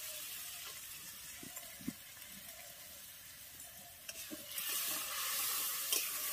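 Spice paste of ginger, turmeric and chilli powder sizzling in oil in a steel wok while a metal spatula stirs it, cooking the masala down. The sizzle dies down over the first two seconds and rises again past the middle, with light scrapes of the spatula against the pan.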